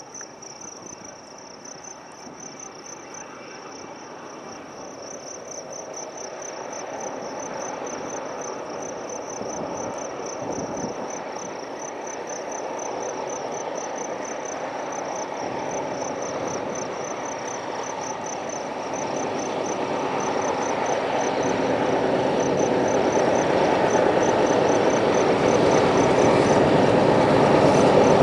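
Union Pacific diesel locomotives hauling a freight train approach, their engine and wheel rumble growing steadily louder. An insect chirps in a fast, even pulse of about four beats a second and stops near the end.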